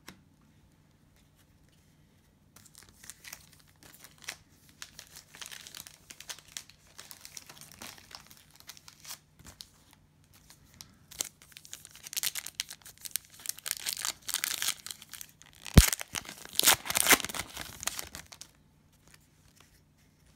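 Cellophane wrapper of a trading-card cello pack being torn open and crinkled, in irregular bursts that begin a few seconds in and grow louder later on, with one sharp click about three-quarters of the way through.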